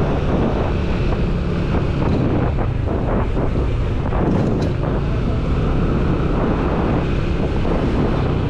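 Wind rushing over a helmet camera's microphone while riding a Yamaha scooter at low speed, with the scooter's engine running steadily underneath.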